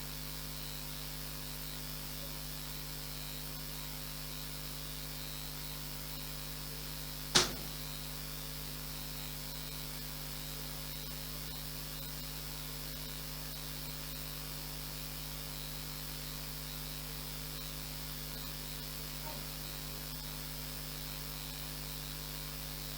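Steady electrical mains hum from the audio feed, with one sharp click about seven seconds in.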